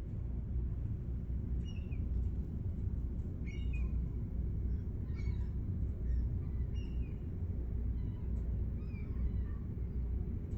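A flock of gulls calling, many short cries overlapping, some falling in pitch, over a steady low rumble.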